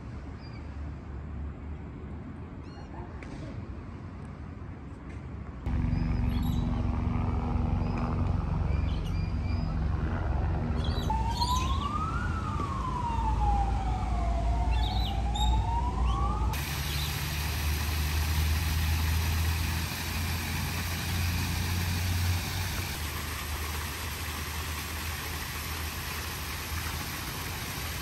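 Low traffic rumble, and about halfway through an emergency-vehicle siren wailing up and down in pitch. Then a steady rush of water pouring over a rock wall in a small waterfall.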